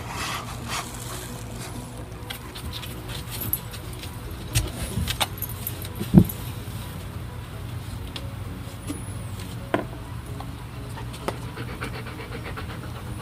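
A dog handling a frozen black rubber Kong on a wooden kennel floor: scattered knocks and clicks, a chain collar jangling, and one louder thump about six seconds in, over a steady low mechanical hum.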